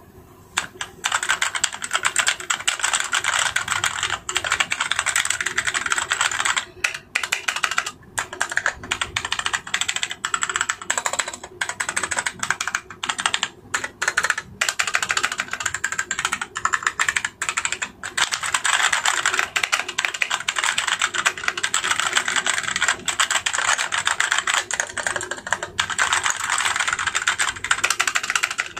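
Continuous fast typing on a Sades Kunai SK-868 65% mechanical keyboard with Gateron red linear switches: a dense patter of keystroke clacks with a few short pauses.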